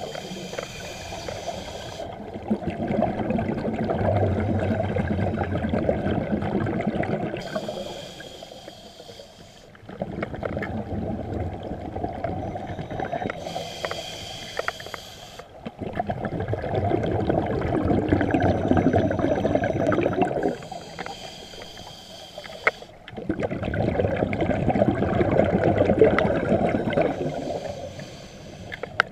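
Scuba diver breathing through a regulator underwater: a short hissing inhale, then a longer bubbling exhale, repeating about every six to seven seconds, five breaths in all.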